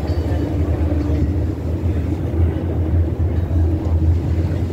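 Tour boat's engine running with a steady low drone, a fainter steady tone above it, and a rush of wind and water.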